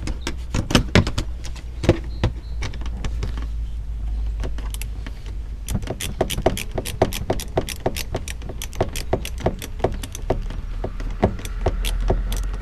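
Hand ratchet with a 10 mm socket clicking as a bolt is run down. A few scattered clicks at first, then a fast, even run of about five clicks a second from about halfway through.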